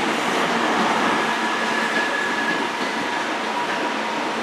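Class 43 HST power car (43174) running at the platform: a steady mechanical noise with a faint high whine.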